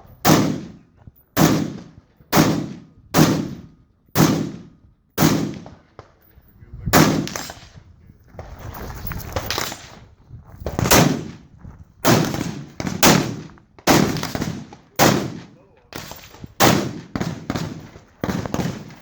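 AR-15 rifle shots fired singly, roughly one a second, each followed by a trailing echo, with a longer pause about halfway through.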